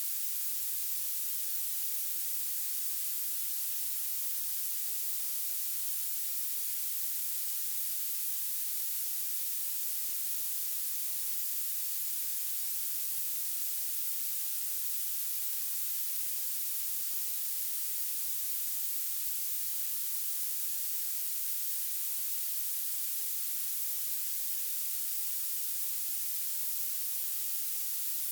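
Violet noise: a steady, unbroken hiss with its energy piled into the highest frequencies and almost nothing in the bass.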